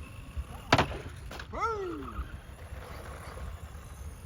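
A sharp knock, then a lighter one, followed by a short voice-like cry that falls in pitch, over a steady low rumble.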